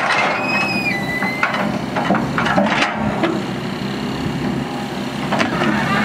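Excavator diesel engine running steadily under hydraulic load while the bucket works soil out of an overturned dump truck bed, with several sharp knocks and scrapes. A short high squeal steps down in pitch during the first second and a half.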